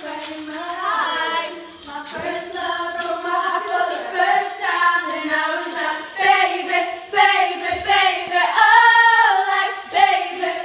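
A group of teenage girls singing together, unaccompanied and loud.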